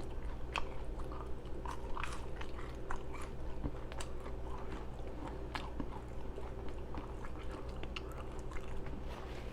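Close-miked mouth sounds of a person chewing a burger: loud, wet lip-smacking heard as an irregular string of small, sharp clicks.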